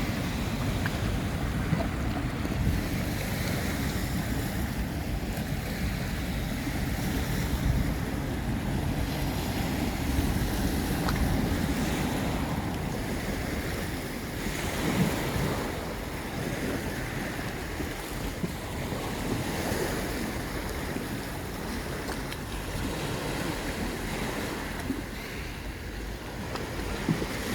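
Sea waves washing onto the shore, swelling and easing every few seconds, with wind buffeting the microphone.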